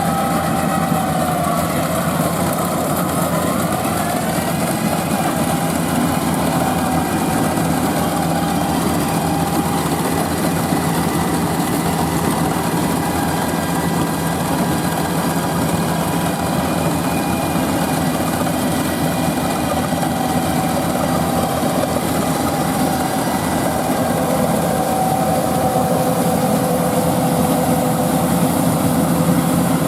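Rice combine harvester running steadily, its engine and machinery making a continuous drone with whining tones that shift slightly in pitch.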